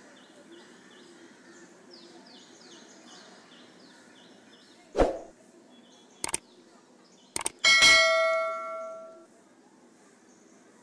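A knock about five seconds in and two lighter clicks, then near eight seconds a metallic clang that rings with a clear pitch and fades over about a second and a half.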